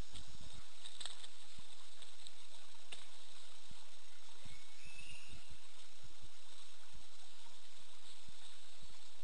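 Steady rush of a forest stream with soft low thumps here and there, and a brief rising chirp about five seconds in.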